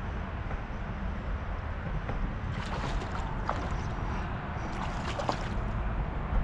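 Wind rumbling on the microphone over water sloshing against a kayak, with a few brief splashes around the middle.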